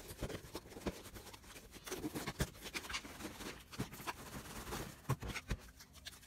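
Slime being squeezed and worked by hand, giving irregular sticky clicks and pops, with a few sharper snaps.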